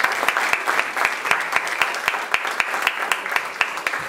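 Audience applauding, a dense patter of many hands clapping that thins slightly toward the end.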